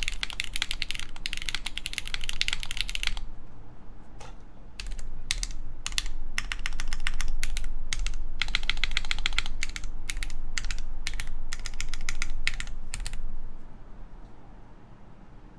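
Typing on a Mode Tempo mechanical keyboard with lubed Gateron X switches in an aluminum plate, fitted with GMK keycaps. Fast, dense keystrokes for about three seconds, then shorter runs of clicks with gaps between them, stopping about thirteen seconds in.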